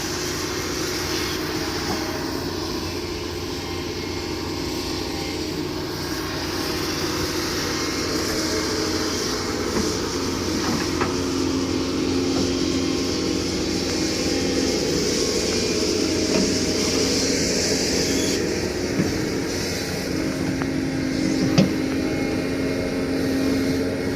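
Doosan DX225LCA crawler excavator running steadily with a droning, humming tone, and a sharp knock near the end.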